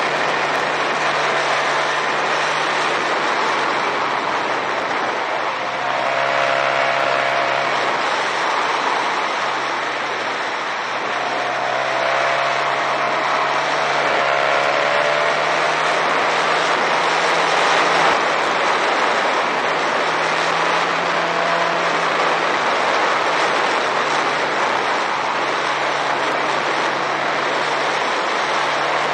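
Motorcycle engine running at steady road speed, heard under a heavy, steady rush of wind on the onboard microphone; the low engine note shifts slightly in pitch now and then.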